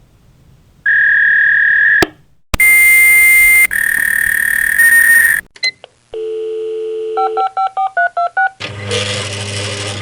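Fax machine handshake: steady high beeps and harsh multi-tone modem screeches, then a steady dial tone, then a quick run of dialing beeps. The sequence ends in about two seconds of mechanical whirring with a low hum.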